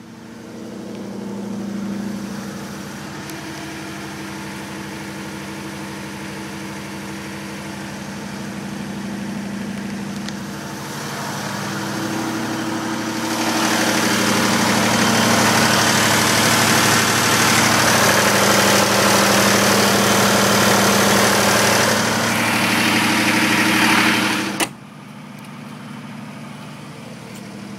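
FG Wilson XD27 diesel generator set running at a steady speed inside its canopy. It grows much louder a little before halfway, when the enclosure door stands open on the engine bay. A door clunk about 25 seconds in cuts it back to a more muffled running sound.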